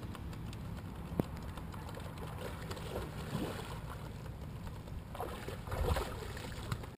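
A person wading through shallow water, feet sloshing and splashing with each step, loudest a little before the end. A single sharp click sounds about a second in.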